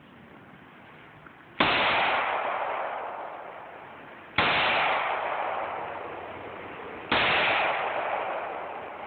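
Three shots from a Glock 19 9mm pistol, about three seconds apart, each a sharp crack that trails off slowly over a couple of seconds.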